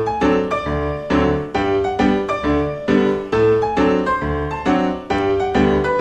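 Background piano music: evenly spaced notes struck about twice a second in a steady, gentle rhythm.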